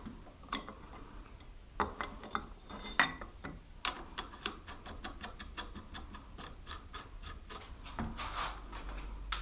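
Small metal motorcycle parts and hand tools clinking and tapping as they are handled: a run of irregular light clicks with a few sharper knocks about two, three and four seconds in.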